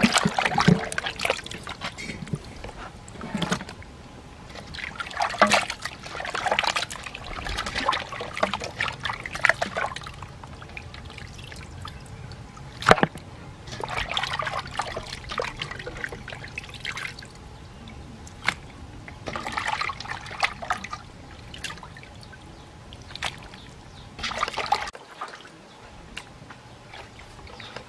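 Raw meat being washed by hand in a metal basin of water: irregular sloshing and trickling as the pieces are rubbed and lifted out, with a few sharp knocks against the basin.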